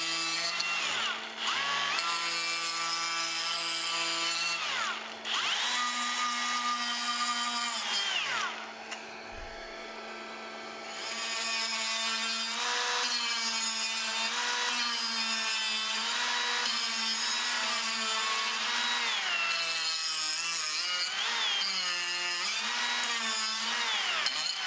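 DeWalt 20V cordless die grinder with a narrow carbide burr whining at high speed as it grinds the outside of an apple-wood spoon bowl. The pitch sags each time the burr bites into the wood. The grinder eases off for a couple of seconds about eight seconds in, then picks up again.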